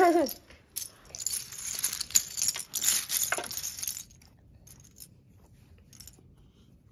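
Small hard-plastic Perfection game pieces clattering and clinking together as a hand stirs and spreads the pile, busiest for about three seconds, then only a few light clicks near the end.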